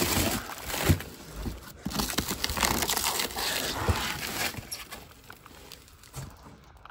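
Plastic and foil packaging crinkling and rustling as wrapped coilover parts are handled in their cardboard box, with a couple of dull knocks. It is loudest over the first four seconds and dies down toward the end.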